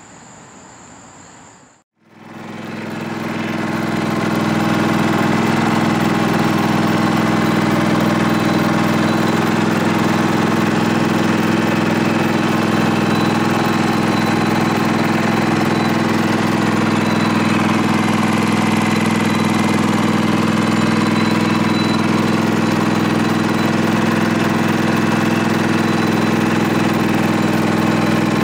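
Crickets trilling for the first two seconds. Then the Scotts S2046 lawn tractor's engine comes in and settles to a steady run, turning the ground drive belt over its new idler pulleys.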